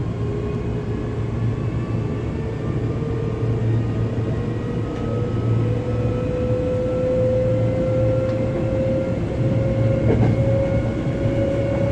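Hankyu 7000 series electric train running, heard from inside the passenger car: a steady low rumble of wheels on track with the traction motors' whine rising slowly in pitch as the train picks up speed.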